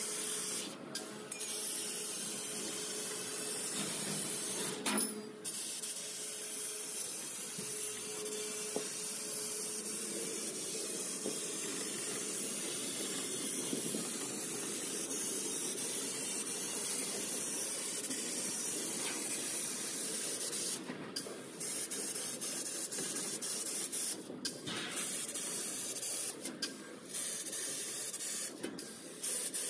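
Fiber laser cutting 3 mm mild steel sheet: a steady hiss of assist gas jetting from the cutting nozzle through the kerf. The hiss stops for a moment about six times as the head finishes one cut and moves to the next.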